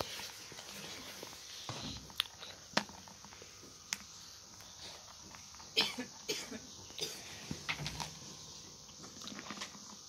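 Irregular sharp clicks and taps as an Alexandrine parakeet pecks and bites at a clear plastic toy jar, with a small cluster of knocks around the middle.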